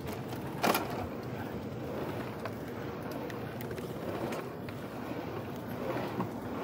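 Wind rushing over the microphone while riding along a road, with steady road and tyre noise underneath. A single sharp knock comes just under a second in, with a few faint clicks after it.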